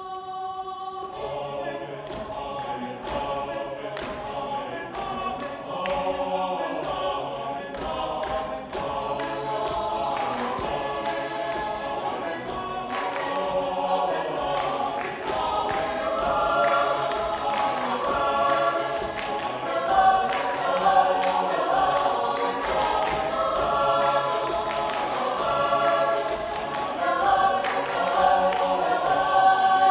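Mixed choir singing a cappella, many voices in full harmony, swelling gradually louder through the passage.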